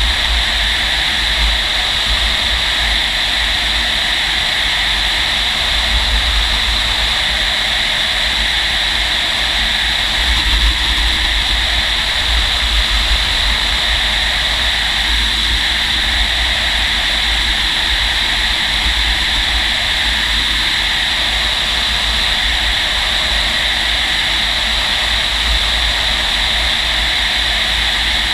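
Steady rush of airflow past a Fox glider's canopy and cockpit under aerotow, a continuous hiss over a heavy low wind rumble.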